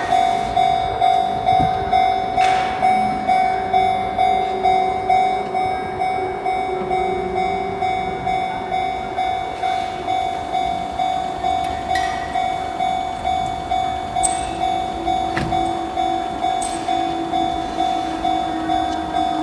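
Japanese railway level-crossing warning bell ringing, one steady tone struck about twice a second, the alarm that a train is approaching and the barriers are closing.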